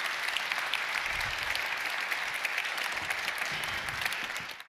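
Audience applauding steadily, dense clapping that cuts off suddenly near the end.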